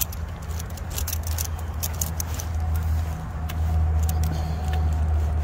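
A steady low rumble that grows louder about three seconds in, with a faint hum coming in near the end. Over it, light metallic clinks and jingles come again and again, like the dog's collar tags and leash hardware as it walks.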